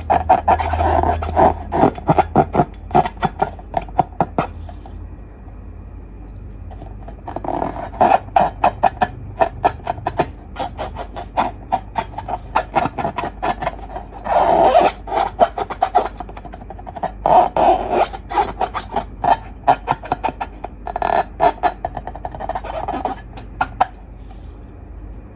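Slime being squeezed and worked by hand: bursts of quick sticky clicks and crackling pops, with short pauses between handfuls.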